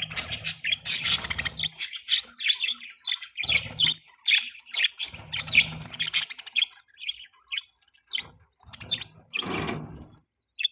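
Budgies (budgerigars) chirping and chattering in quick, short calls, with a few stretches of low rustling now and then.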